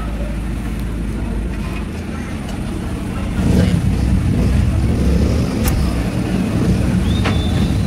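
A steady low engine-like rumble that grows louder about three and a half seconds in, with a few sharp clicks and a brief high whistle near the end.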